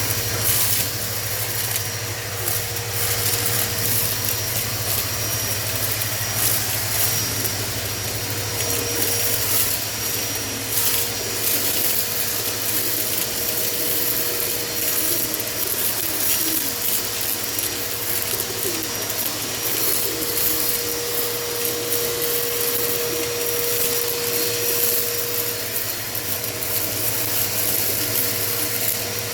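Electric vacuum cleaner running steadily as a low hum with a steady whine over a hiss, sucking dust, droppings and feathers off a pigeon-loft floor, with brief scratchy rustles as debris is drawn in.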